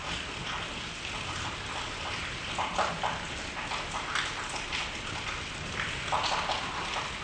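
Rain falling steadily on trees and leaves, a continuous hiss with scattered heavier drops.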